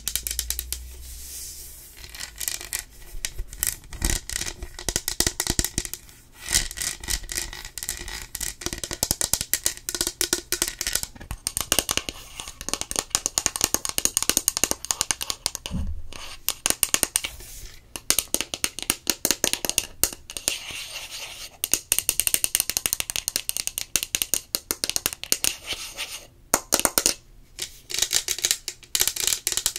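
Fingernails tapping and scratching rapidly on a lidded drinking tumbler and its straw, held right against the microphone: a dense, uneven stream of sharp clicks and scrapes.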